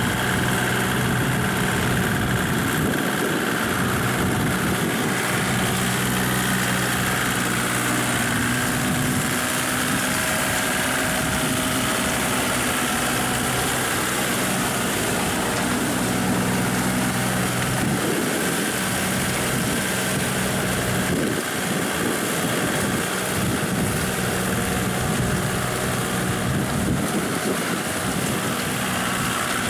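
Kubota compact tractor's diesel engine running steadily, with a slight rise and fall in pitch, as it drives a rear rotary tiller through wet paddy mud.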